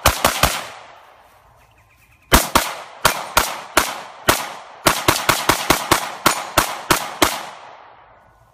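FN Five-seveN pistol firing 5.7×28 mm rounds. Three quick shots, a pause of about two seconds, then a rapid string of about twenty shots, each with a short ringing echo.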